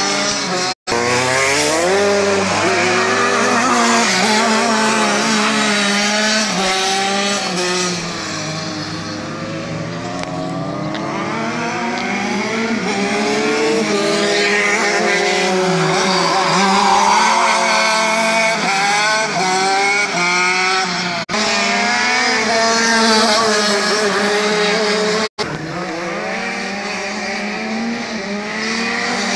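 Racing go-kart engines revving up and down again and again as the karts accelerate out of corners and ease off into them, with several pitches at once at times. The sound cuts out briefly about a second in and twice more near the end.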